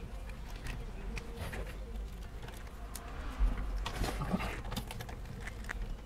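Scattered light clicks and taps of a precision screwdriver turning screws out of an ASUS Strix GTX 1080 graphics card, with handling noise as the card is held and moved.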